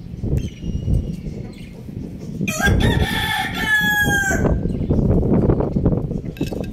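A rooster crowing once, a call of about two seconds starting about two and a half seconds in, over a steady low rumbling noise.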